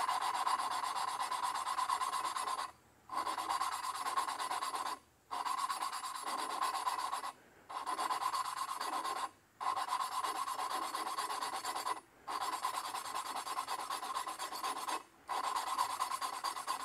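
An engine valve being hand-lapped into its hardened steel seat with lapping compound: a steady gritty rubbing, broken by short pauses every two to three seconds.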